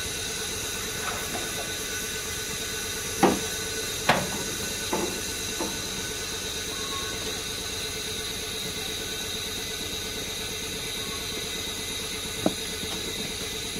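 Narrow-gauge saddle-tank steam locomotive standing at the platform, hissing steam steadily. A few short metallic clanks come in the first half and one more near the end.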